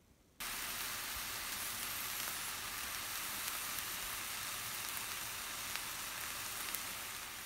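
Steady sizzling hiss from whole boiled potatoes cooking in a pot, with a few faint ticks in it. It starts suddenly about half a second in.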